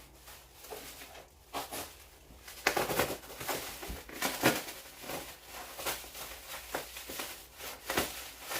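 A shipping box being unpacked by hand: irregular rustles, clicks and knocks as the box and its packing are handled and pulled open.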